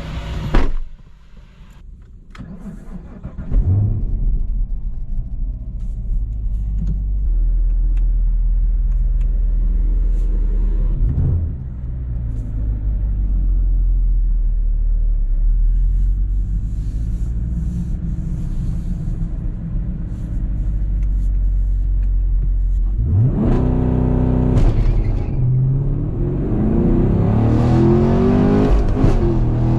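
2022 Camaro SS 1LE's 6.2-litre LT1 V8 engine and exhaust under way. It runs at a steady note for most of the stretch, with a short drop in level about a second in and a brief break near the middle. Near the end it pulls hard, its pitch climbing steeply, then rising and falling as the revs change.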